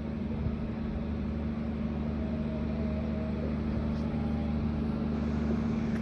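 Steady low electrical hum with a soft hiss from an amplified sound system, rising slightly in level.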